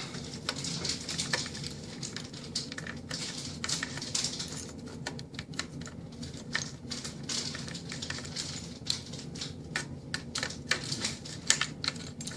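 Irregular small clicks and light taps of hand-handled metal and plastic parts as a new ignition lock cylinder is readied and fitted into a GM steering column.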